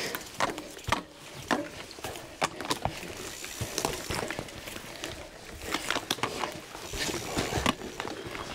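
Footsteps of a cyclist walking and pushing a gravel bike on a forest trail, with irregular clicks and knocks from the ground and the bike.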